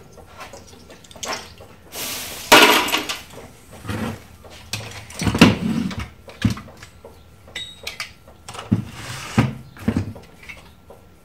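Clatter of a set-top box being taken apart by hand: scattered clicks and knocks of sheet-metal chassis parts, circuit boards and hand tools. A loud scraping rattle comes about two and a half seconds in, and a sharp knock about five and a half seconds in.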